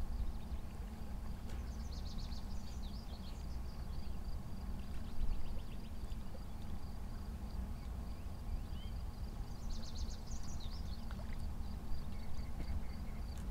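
Outdoor ambience: a steady low rumble, with a faint constant high whine and birds chirping in quick bursts about two seconds in and again about ten seconds in.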